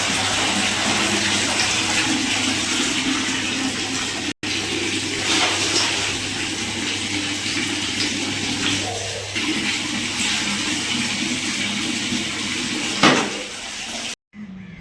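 Canon LBP2900 laser printer running: a steady whirring, rushing machine noise over a low hum, with a short loud knock near the end.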